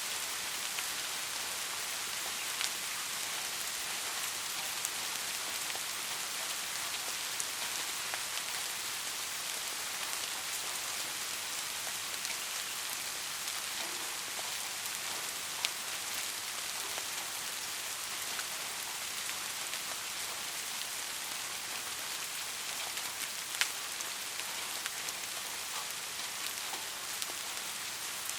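Steady rainfall, an even hiss of falling rain, with a few louder single drops striking now and then.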